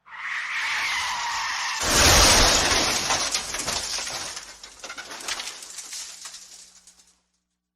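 Car crash sound effect: tyres screech for nearly two seconds, then a loud impact, followed by debris clattering and rattling that fades out over about five seconds.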